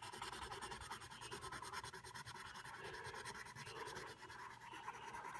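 Pencil scratching lightly across paper as a drawing is shaded, a faint continuous rasp of graphite strokes.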